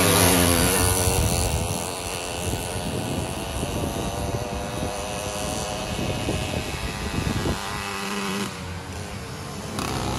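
Small two-stroke motorized-bicycle engines racing, one passing close at the start, its pitch falling as it moves away, with others running further off and one drawing near again at the end.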